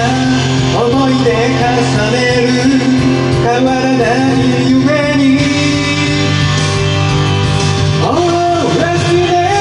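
Karaoke backing track playing through the room's speaker: an instrumental passage with a melody line over a steady beat.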